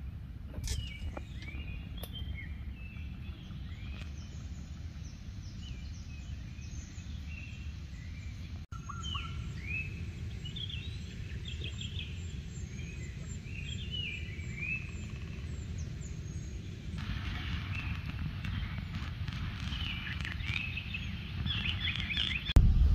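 Several small songbirds chirping and calling in quick, varied phrases over a low steady rumble. A steady hiss joins about three-quarters of the way through.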